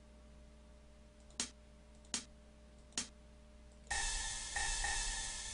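Three single mouse clicks, then from about four seconds in a sampled crash cymbal from a software drum kit hits several times in quick succession, each hit ringing briefly and cutting off abruptly.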